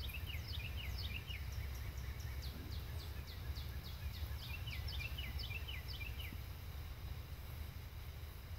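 A songbird singing quick runs of short, down-slurred chirps that stop about six seconds in, over a steady low rumble.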